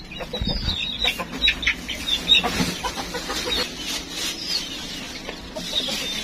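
Hens clucking in short high calls, over rustling and a few light knocks at a wooden feed trough as chopped green fodder is handled.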